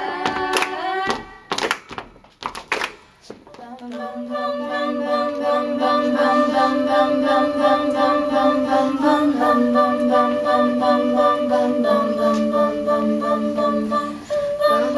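An a cappella vocal group holds a final sung chord, then a few sharp hand claps follow in a brief lull. From about four seconds in, several voices hum sustained wordless chords that change pitch twice near the end.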